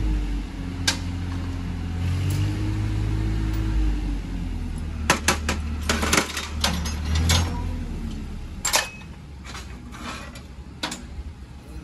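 Sharp metallic clinks and taps of spanners and other hand tools on a tractor engine's bolts and a steel tool tray, coming in a busy run in the middle and again near the end. Under the first part runs a low mechanical hum with a wavering drone, which fades about eight seconds in.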